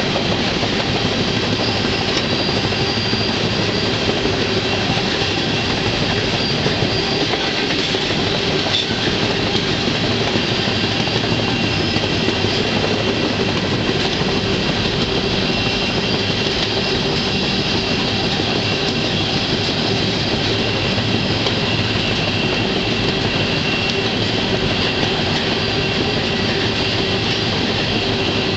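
Freight train rolling along the track, heard from aboard a car: a steady, loud noise of wheels on rails, with faint high squealing tones that come and go.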